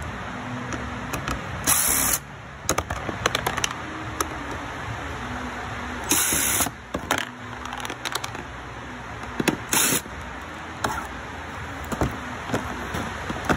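Cordless drill-driver spinning in three short bursts, about two, six and ten seconds in, backing out the small Phillips-head screws that hold a fog light in a Toyota Prado 150's front bumper. Light clicks and knocks from handling the parts come between the bursts.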